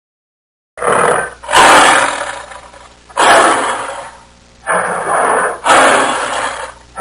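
Tiger roaring: a run of five loud roars with short gaps between them, starting about a second in.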